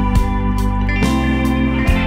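Background music with sustained chords: the chord changes about a second in and again near the end.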